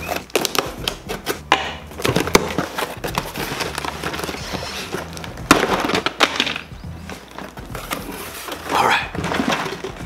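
Cardboard shipping box being torn open by hand: crackling and ripping of the taped flaps with sharp snaps, the loudest about halfway through, then packaged tackle rustling and clattering inside the box.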